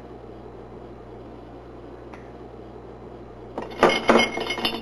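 A glass jar on a countertop clattering and clinking loudly as a hand grabs and handles it, starting about three and a half seconds in and lasting about a second, over a steady low hiss.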